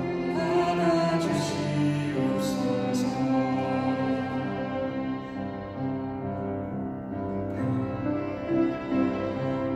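A slow Korean Catholic hymn sung into a microphone, accompanied by violin and flute, with sustained bowed and blown notes.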